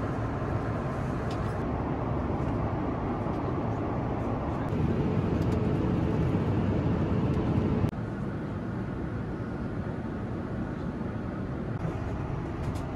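Boeing 787-9 cabin noise in flight: a steady rush of airflow and engine rumble. It grows louder about five seconds in and drops back abruptly about eight seconds in.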